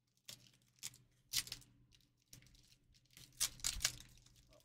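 Foil Pokémon booster pack wrapper being torn open and crinkled by hand, in several short rips and rustles.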